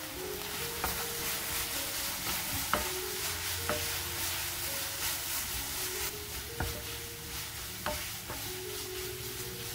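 Eomuk (Korean fish cake) strips, onion, carrot and chili peppers sizzling in a nonstick pan as they are stir-fried with a wooden spatula. There is a steady sizzle with about half a dozen sharp clicks of the spatula knocking against the pan.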